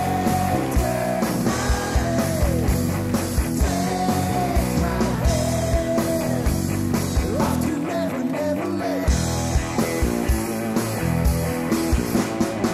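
Loud rock music: a steady drum beat under guitars, with a held, bending melody line on top.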